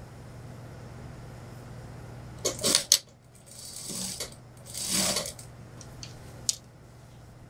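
Suit fabric rustling and sliding as it is shifted by hand on an industrial sewing machine's bed, with a cluster of sharp clicks about two and a half seconds in and a single click about six and a half seconds in, over a low steady hum.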